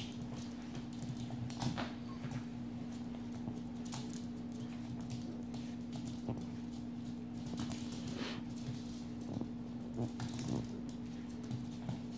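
Pomeranian puppy playing roughly with a bath towel: scattered scrabbling and rustling on a hardwood floor, with a steady hum underneath.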